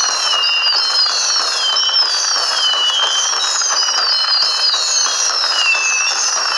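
Fireworks: many overlapping whistles gliding down in pitch, several a second, over a steady crackling hiss, with no clear bangs.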